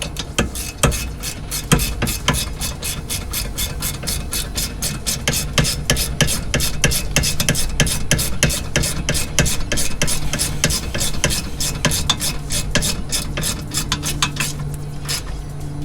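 Socket ratchet clicking rapidly and unevenly as it is swung back and forth to tighten the rear brake caliper bolts; the clicking stops shortly before the end.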